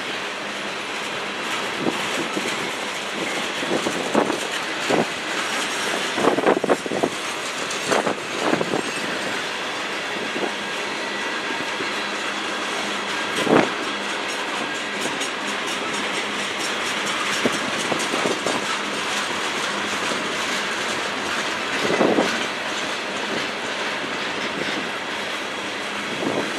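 Freight cars of a passing train rolling by: covered hoppers, a centerbeam lumber car and tank cars. Their steel wheels make a steady noise on the rails, broken by irregular clacks and knocks, which cluster about six to eight seconds in and stand out again near the middle and about three-quarters of the way through.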